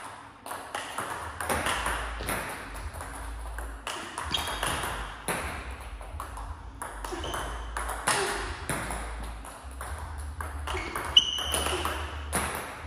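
Table tennis ball being hit with bats and bouncing on the table: a quick, uneven run of sharp clicks with brief pauses, as in a training drill.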